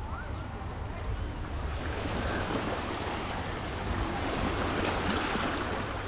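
Waves breaking and washing up a sandy beach, the surf swelling about two seconds in and easing off near the end, over a low wind rumble on the microphone.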